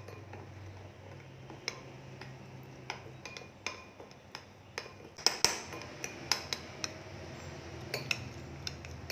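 A spoon stirring a thick spice paste in a bowl: irregular clinks and taps of the spoon against the bowl, coming thicker about halfway through.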